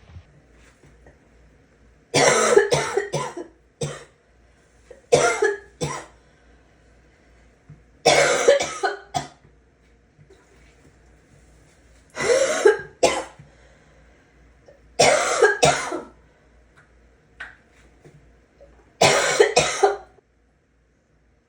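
A person coughing in harsh, gagging fits, about six of them a few seconds apart, each made of two or three quick coughs.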